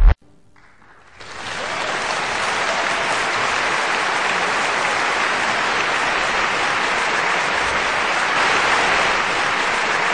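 Applause from a crowd, fading in about a second in and then holding steady as a dense, even clapping.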